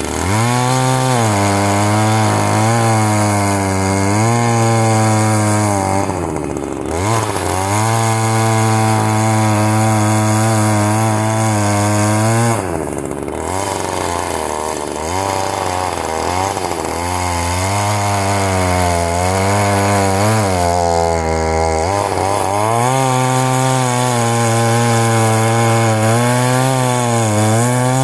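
Ryobi RY3714 14-inch corded electric chainsaw cutting down through a stump at ground level. The motor's pitch sags under load and climbs back again and again as the chain bites and frees, with a few short drops in speed along the way.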